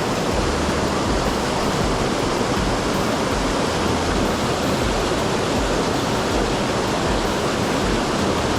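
Rushing water of a mountain stream, a steady even noise.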